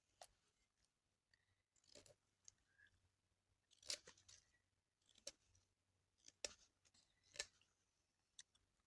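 Faint, sharp clicks and snaps, about seven of them at uneven intervals, over a faint low hum.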